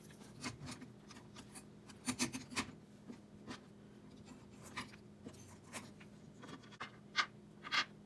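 Scattered light clicks, taps and scrapes of small metal hardware being handled: springs, washers and nuts being fitted onto the bed-leveling screws of an Anet A8 3D printer, over a faint steady hum.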